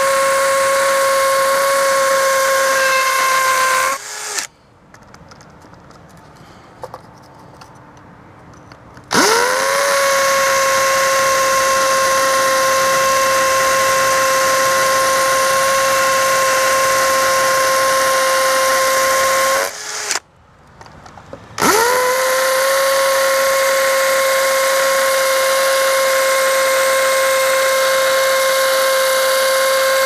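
Cordless drill running at steady speed, drilling through a plastic junction box into a brick wall. It runs in three long stretches, the pitch rising briefly as the motor spins up at each start. The motor stops about 4 s in and again about 20 s in, with pauses of about five and two seconds.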